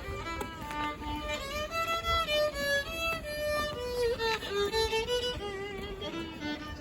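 Violin playing a melody, one note after another with a slight waver in pitch.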